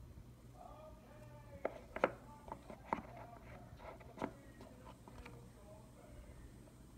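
Plastic and cardboard packaging being handled as accessories are taken out of an iPhone box's tray: a string of sharp clicks and taps, the loudest about two and three seconds in.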